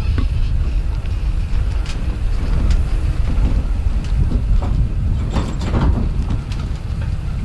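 Wind buffeting the microphone, a loud uneven low rumble, with a few short knocks or rattles about five to six seconds in.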